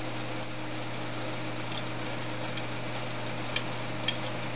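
Steady low hum of running room equipment, with two faint light clicks near the end from small valve-train parts being handled at the engine's cylinder head.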